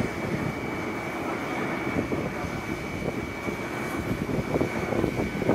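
Steady rushing roar of a burning car being hosed down, with a constant high whine over it and a few faint crackles.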